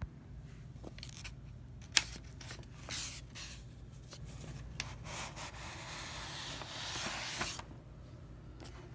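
A vinyl record slid against its paper inner sleeve while being handled: paper rubbing and rustling, with scattered light taps and one sharp click about two seconds in, and the longest, loudest stretch of rubbing from about five seconds in.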